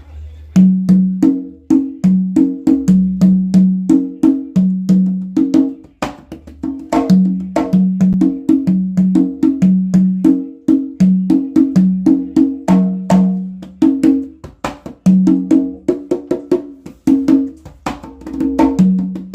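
Handmade Joiz congas played by hand in a continuous rhythm: ringing open tones at a low and a higher pitch alternate, cut through by sharp slaps.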